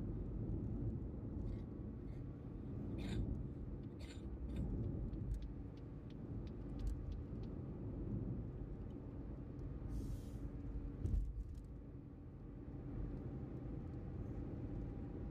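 Car driving on a motorway: steady low road and tyre rumble, with a few short clicks and a louder knock about eleven seconds in.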